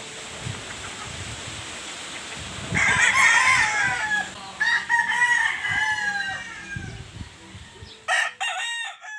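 Rooster crowing: a long crow begins about three seconds in and trails off over several seconds, then a shorter call starts near the end and is cut off.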